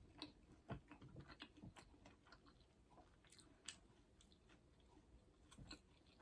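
Faint chewing: a person eating a bite of food with the mouth, soft irregular clicks and smacks.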